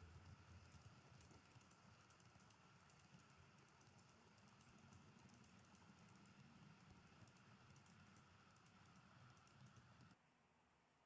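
Model-railway tank wagons rolling past on the track: a faint, rapid clicking clatter of small wheels with a low rumble beneath, which stops abruptly about ten seconds in.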